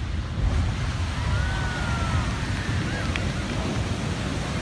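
Steady rush of fast, turbulent floodwater with heavy wind buffeting on the microphone, getting louder about half a second in; a few faint whistle-like tones rise and fall above it.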